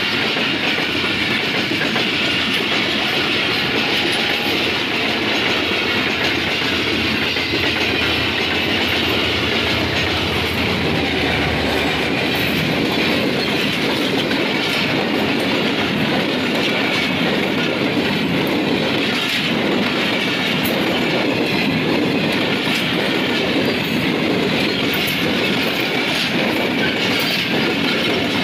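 A long passenger train running past close by at speed: a steady rumble of coaches on the rails, with the rapid clickety-clack of wheels over the rail joints.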